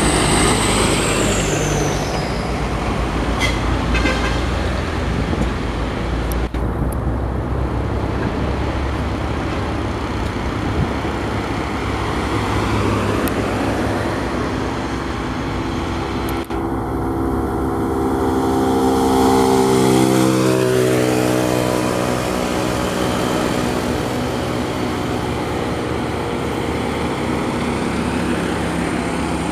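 Heavy diesel trucks running up a steep grade with other road traffic going past. About twenty seconds in, one engine's note falls in pitch as it passes.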